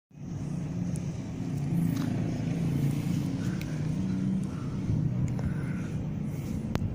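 Outdoor urban ambience dominated by a steady low motor hum, like nearby road traffic, with a few faint ticks and one sharp click near the end.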